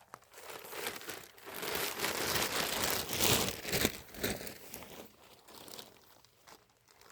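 Crinkling and rustling of something being handled, building about a second in, loudest in the middle few seconds, then fading.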